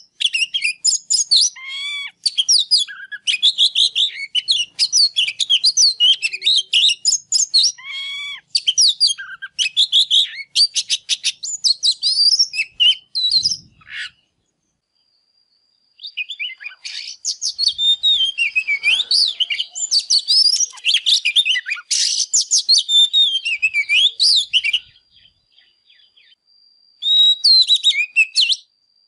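Oriental magpie-robin in fired-up full song: a loud, fast, varied stream of chirps, rapid trills and whistled phrases. It breaks off for about two seconds in the middle and again briefly near the end.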